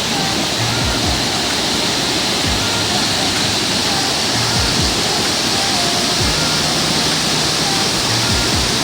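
Rushing water of a mountain stream, a loud, steady rush with no break.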